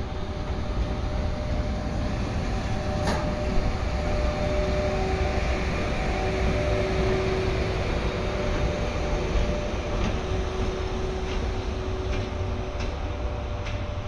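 EF81 electric locomotive running light at low speed past and away: a steady hum with several held tones over a low rumble. A sharp click comes about three seconds in, and a few more come in the last few seconds.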